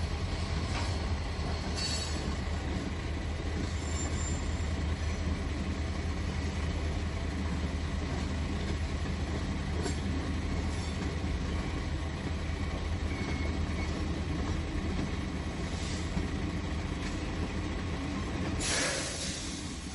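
HO-scale model freight cars rolling past on the track, a steady rumble and rattle of their wheels over the rails. A brief louder rasp comes near the end.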